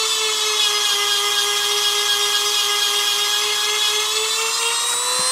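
Handheld EzzDoo rotary tool with a diamond bit grinding a chainsaw chain cutter whose tip is broken away, taking it back to a sharp edge. It makes a steady high whine over a grinding hiss, and the whine sags slightly in pitch under load through the middle, then rises again near the end.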